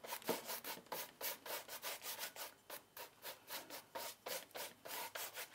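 A paintbrush scrubbing acrylic paint across a stretched canvas in quick back-and-forth strokes, about four a second, blending the colours together.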